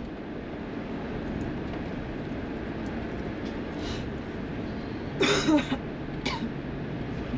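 Steady road and engine noise of a moving vehicle. About five seconds in comes a short, loud vocal sound like a cough, and a smaller one about a second later.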